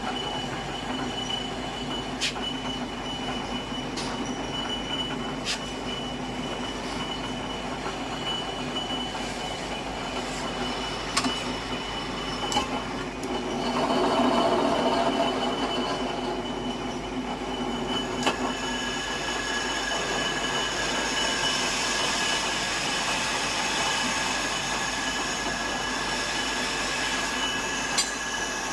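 Multi-spindle tapping machine running and tapping threads: a steady mechanical hum with a high metallic whine and a few sharp clicks. It grows louder for a couple of seconds about fourteen seconds in, and the whine changes pitch about eighteen seconds in.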